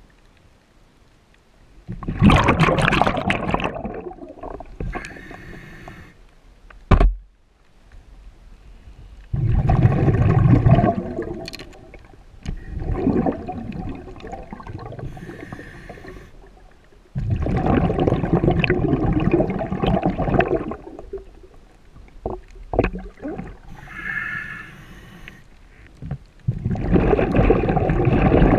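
Scuba diver breathing through a regulator underwater: exhaled bubbles rush out in long bursts about every seven to eight seconds, with a quieter hissing inhalation through the regulator between them. A single sharp knock about seven seconds in.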